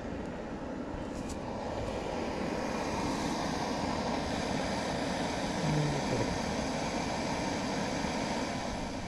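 Small backpacking canister stove burning under a stainless coffee percolator: a steady rushing hiss, its higher part growing stronger from about three seconds in.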